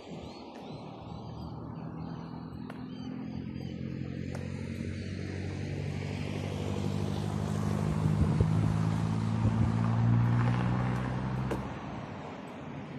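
A motor vehicle driving past, its engine hum and tyre noise growing steadily louder for about ten seconds, then dropping away fairly quickly near the end.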